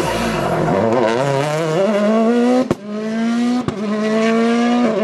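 Rally car's turbocharged four-cylinder engine drops in pitch as it slows for a hairpin, then accelerates hard away, climbing in pitch through the gears. Quick upshifts come about a second apart, and two of them give a brief cut with a sharp crack.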